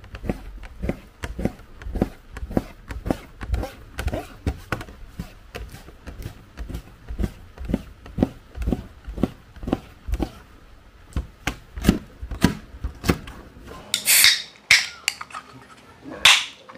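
A kitchen knife slices raw rockfish for sashimi, each stroke tapping through onto a plastic cutting board in a steady rhythm of two or three a second. Near the end come a few loud, short hissing crackles.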